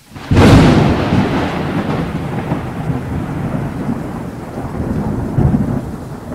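Thunderclap sound effect: a sudden loud crack about a third of a second in, then a long rolling rumble that swells again near the end and fades.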